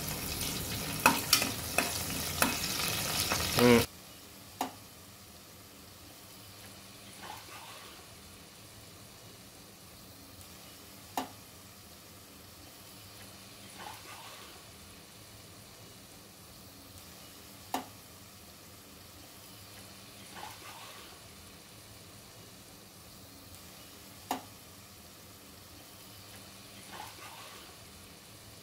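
Green chillies and curry leaves sizzling in hot oil in an aluminium pressure cooker, stirred with a metal spoon that scrapes the pan for the first four seconds. It then drops suddenly to a faint sizzle with a light click every few seconds.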